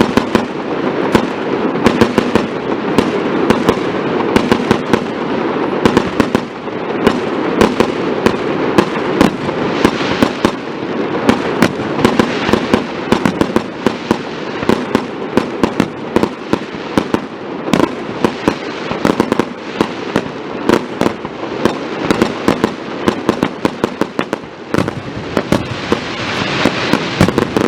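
Aerial fireworks going off in quick succession: a dense run of sharp cracks and pops, several a second, over a steady crackling hiss.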